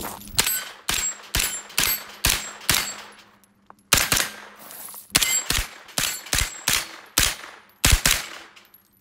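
Diamondback DB9R 9mm pistol-caliber carbine fired in two quick strings of shots, about two to three a second, with a short pause about three and a half seconds in.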